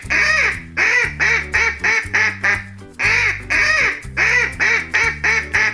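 Duck quacking in a quick run of loud quacks, the same run starting again about three seconds in, over light children's backing music with a steady bass line.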